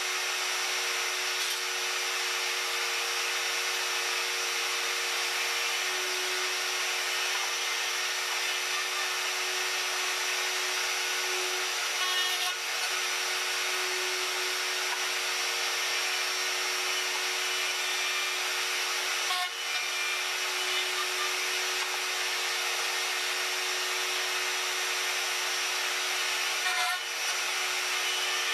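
Router mounted under a small router table running steadily while it cuts square box-joint fingers into the end of a wooden board fed past the bit on a finger-joint jig. A short knock comes about every seven seconds, three times in all.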